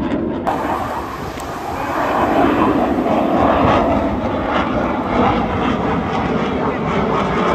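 Military jet aircraft flying past overhead: a loud, steady rushing jet-engine noise that swells slightly about two seconds in.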